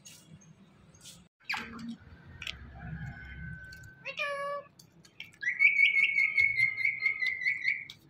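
Indian ringneck parrot calling: a quick sweeping note, a held whistle, a short squawk, then a long, loud, wavering high call from about five and a half seconds in to the end.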